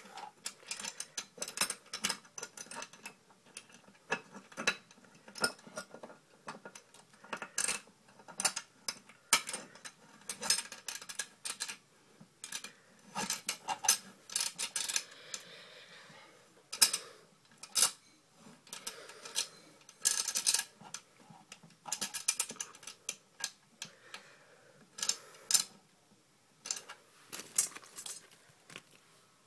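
Irregular metallic clicks and clinks of a 1-inch cable connector and its locknut being worked by hand and tightened into the bottom knockout of an electric meter socket.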